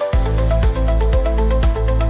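Electronic background music: a synth melody, with a heavy bass beat coming in just after the start at about two beats a second.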